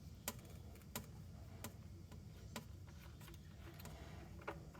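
Five faint separate clicks over a low, steady hum.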